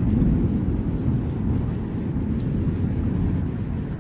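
Thunder rumbling low and loud after a nearby strike, slowly dying away toward the end.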